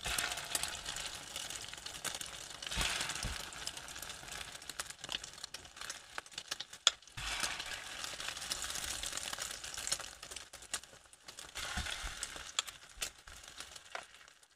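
Egg-battered slices of pink sausage frying in oil in a nonstick pan, sizzling steadily, with light clicks of a metal spoon against the pan and one sharper click about seven seconds in. The sound cuts off suddenly near the end.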